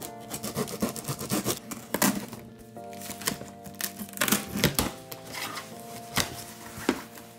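Clear plastic packing tape being peeled off a cardboard box with sharp tearing and crackling, then the cardboard flaps opened, over background music with held chords.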